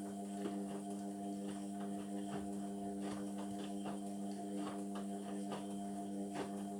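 Indesit washing machine running mid-cycle on a synthetics programme: a steady mechanical hum that switched on just before, with irregular light clicks and knocks over it.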